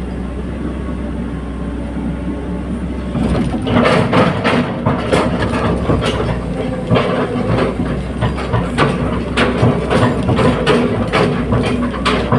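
Hydraulic excavator running with a steady engine drone; from about three and a half seconds in, a run of irregular clanks and knocks joins it as the machine works.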